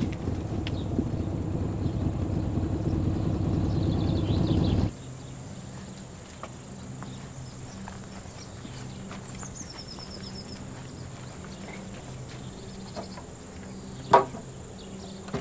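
A motor vehicle's engine running and growing louder as it approaches, cut off abruptly about five seconds in. After that comes a faint low engine hum with birds chirping, and a single sharp knock near the end.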